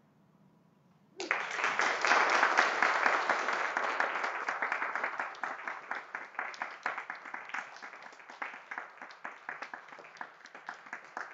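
A small congregation applauding: clapping starts suddenly about a second in, dense at first, then thins to scattered claps.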